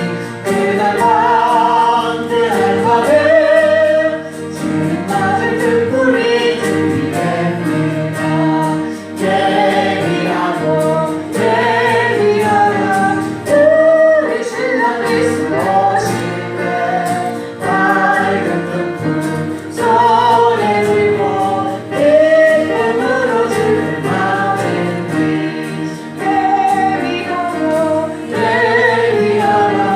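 A church congregation singing a Korean gospel hymn together in mixed voices, over steady sustained low accompaniment notes.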